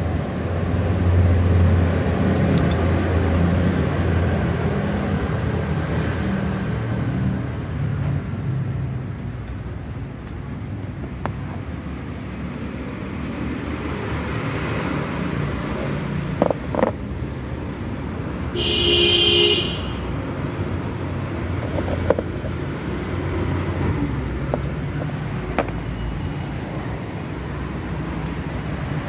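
Scooter engine idling with its CVT side opened up, a steady low running noise carrying the rough mechanical noise that is being traced. A couple of light knocks come about sixteen seconds in, and a horn toots briefly a little later.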